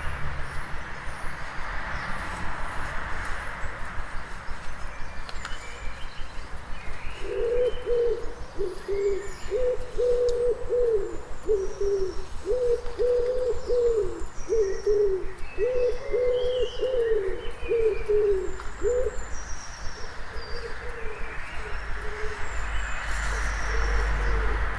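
A pigeon cooing in a run of repeated phrases, starting about seven seconds in and lasting about twelve seconds, over small songbirds chirping high and thin in a dawn chorus. A low background rumble, stronger at the start and near the end.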